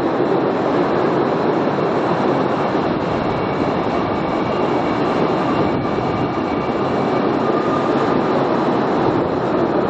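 Postojna Cave's narrow-gauge tourist train running steadily, heard from on board: an even rumble and rattle of wheels on rails. A faint thin whine joins for a few seconds midway.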